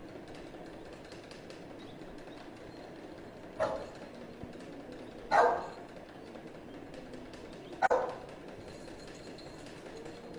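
Dog barking: three short barks a couple of seconds apart, the last a quick double, the middle one the loudest.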